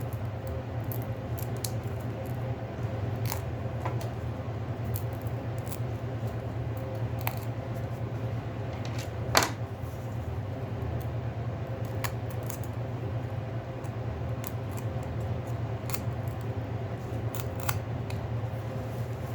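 Scattered light clicks and taps of small tools and parts being handled while a Samsung Galaxy A50 smartphone is taken apart, with one sharper click about nine seconds in, over a steady low hum.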